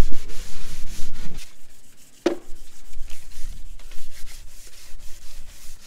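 Sandpaper on a hand sanding block rubbed back and forth over a wooden chair, in irregular rasping strokes that scuff up the old finish. A short squeak comes a little over two seconds in.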